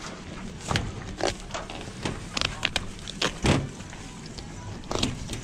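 Filleting knife slicing a fish on a stainless steel bench, cutting along the backbone and through the rib bones in a series of about seven short, sharp strokes.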